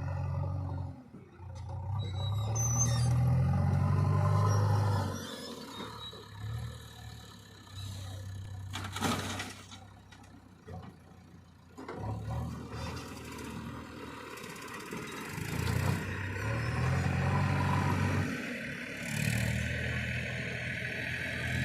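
Diesel engine of a JCB 3DX backhoe loader working, its revs swelling and dropping again and again as the hydraulics take load. A short sharp noise cuts through about nine seconds in.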